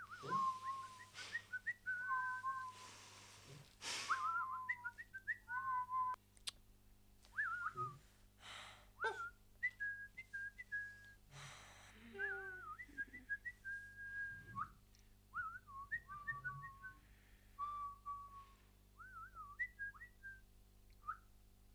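A person whistling a wandering tune in short phrases that slide up and down, broken by several brief bursts of breathy hiss.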